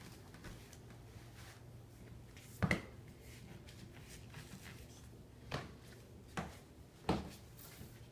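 A pet cat coughing: four short, sharp coughs, the first the loudest, the other three close together near the end.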